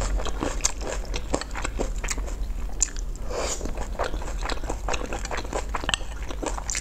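Close-miked chewing of a mouthful of saucy food and rice: a steady run of many small wet clicks and mouth smacks.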